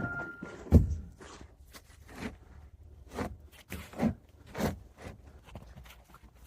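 Irregular thuds and knocks, one every second or so, the loudest about a second in.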